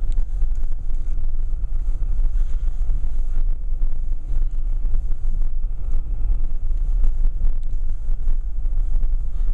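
Steady low rumble of a car being driven, with no sudden events.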